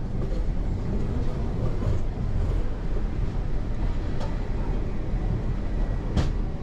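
Gornergrat Railway cogwheel train running downhill: a steady low rumble with a few sharp clicks, about four and six seconds in.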